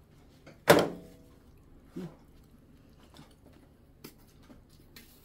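A single sharp knock with a brief ring, a hard object set down on the dining table, about a second in. It is followed by a few faint small clicks of a kitchen knife as a piece of fruit is peeled.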